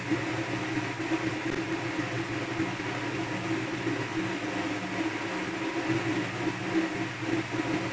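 A steady low mechanical hum with an even hiss, unchanging throughout, like a motor running in the room.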